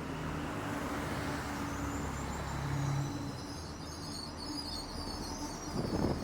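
Train running with a steady low hum and a few steady tones. Birds chirp faintly above it from about two seconds in, and there is a short low thump near the end.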